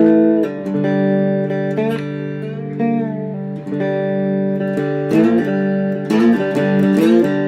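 Three-string cigar box guitar tuned GDG, played with a slide: notes glide into pitch over ringing low strings, with a quicker run of plucked and strummed notes from about five seconds in.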